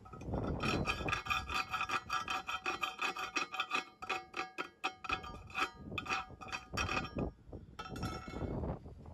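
Chipping hammer knocking and scraping slag off a fresh gasless flux-core weld bead on thin steel square tubing: a rapid run of metal-on-metal strikes, each leaving the hollow tube ringing at the same few pitches. The strikes pause briefly, then a shorter burst follows near the end.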